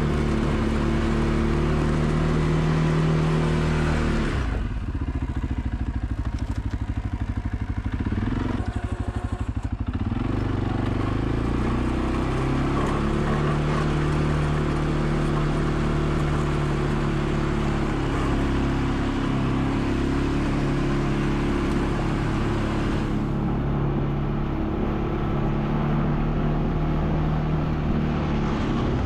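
ATV engine running steadily while plowing snow, with a rushing hiss over it. About four seconds in the hiss drops away and the engine note dips, climbing back around ten seconds in; the hiss fades again near the end.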